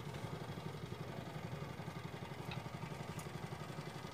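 A small engine running steadily: a low, even drone with a fast, regular pulse.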